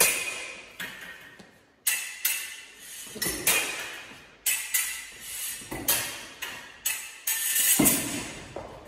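Fencing foil blades clashing: a long, irregular run of sharp metallic clicks with a short ring, from parries and beats, often in quick pairs. Heavier thuds of footwork on the floor come in between, the loudest about eight seconds in.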